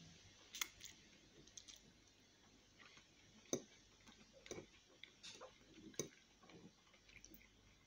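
Quiet eating at a table: faint chewing and mouth sounds, with a few short sharp clicks of a metal fork against a ceramic plate, the loudest about three and a half seconds in.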